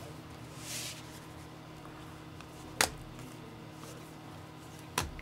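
Quiet handling of trading cards: a brief soft rustle, then two sharp clicks about two seconds apart, over a steady low hum.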